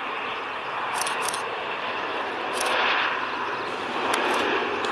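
Embraer E190 regional jet's turbofan engines, a steady rushing jet noise that swells a little around the middle as the aircraft flares and touches down on the runway. A few brief high hisses or ticks stand out over it.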